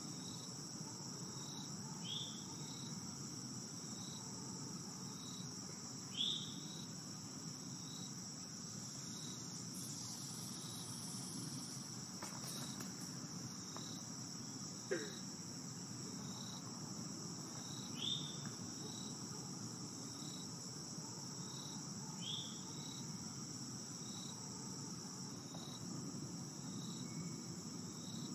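Steady high-pitched insect chirring with a short chirp repeating about once a second, over a low hum of background noise. A few louder short calls, falling in pitch, stand out every few seconds.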